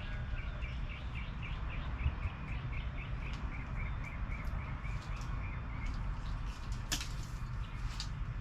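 A bird calling a fast run of short, evenly repeated chirps, about four a second, that stops about six seconds in, over a steady low background hum. Two sharp clicks come near the end.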